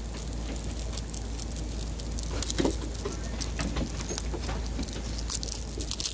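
Fingers picking and scratching at the plastic shrink-wrap of a boxed card game: a scatter of small clicks and rustles over a steady low rumble.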